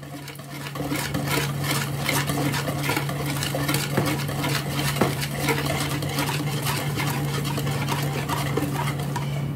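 Hand wire whisk beating a thin liquid batter in a plastic bowl: a steady run of rapid light clicks and swishes as the wires strike the bowl, picking up about a second in.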